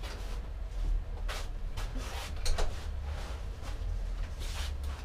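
A few faint, short clicks and rustles of hands working on a pit bike, over a steady low hum.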